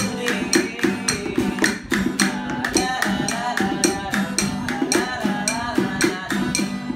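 Steel-string acoustic guitar strummed in a steady rhythm, with sharp percussive strokes about four to five times a second, and a man singing along with a melody that slides in pitch.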